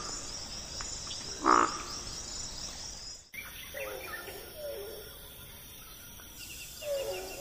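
Frogs croaking, a few short separate calls, over a faint high insect trill.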